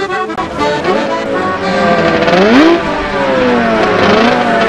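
Motorcycle engine revving up and falling back in sweeping rises and drops, twice climbing sharply, over background music.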